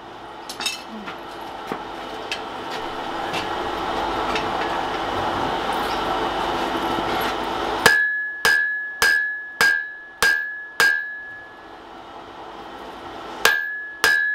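Hammer blows on a hot wrought iron hammer head against the anvil, each strike ringing out: six blows about half a second apart, a pause, then two more near the end. Before the blows, a steady rushing noise slowly builds for about eight seconds and cuts off suddenly at the first strike.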